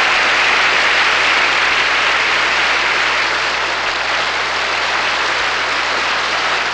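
Audience applauding steadily after an introduction, a thick even patter of many hands clapping.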